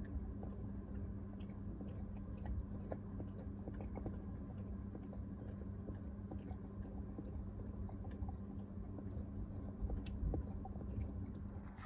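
A Staffordshire bull terrier chewing at a rubber treat-dispensing toy to work the treats out, making many small irregular clicks, over a steady low hum.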